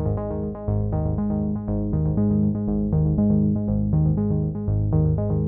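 Background music: a synthesizer and keyboard track with a quick, even pulse of repeated notes over a steady bass line.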